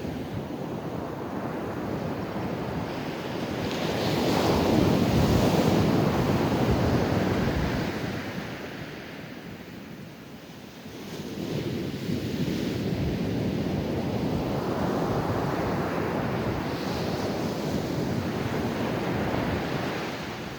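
Ocean surf breaking and washing up a beach. One wave swells to its loudest about four to seven seconds in and dies away, then the next builds again about eleven seconds in and runs on steadily.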